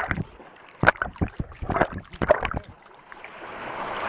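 Water sloshing and splashing in a canyon pool right at the microphone as a swimmer strokes through it, in irregular short splashes. After a brief lull near three seconds, the splashing grows into a rising rush as the swimmer pushes water toward the camera.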